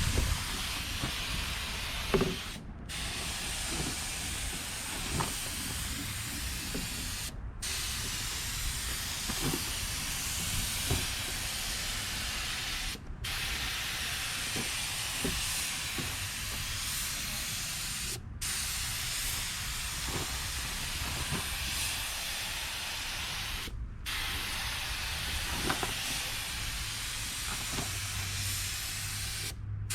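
Compressed-air paint spray gun hissing steadily as it sprays, with the trigger released for a split second about every five to six seconds between passes.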